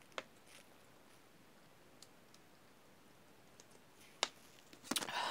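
Thin plastic water bottle clicking and crackling as it flexes while being drunk from: a few scattered faint clicks, then a quick run of crackles near the end.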